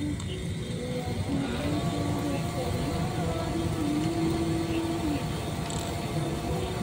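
Background music with a sung melody of held notes that step up and down, over a steady low rumble.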